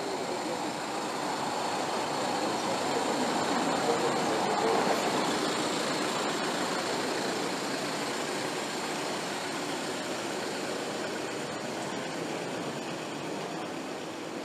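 Street traffic noise: a vehicle passes close by, its sound swelling to a peak about four to five seconds in and then easing back to the steady hum of the street.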